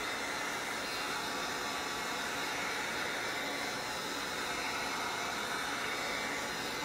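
Handheld heat gun blowing steadily, its fan and hot air making a continuous hiss as it dries fresh acrylic paint.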